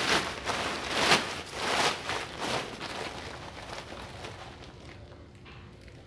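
Loose bonsai soil being poured and pushed in by hand around the trees' roots: about four short gritty bursts in the first three seconds, then fainter handling.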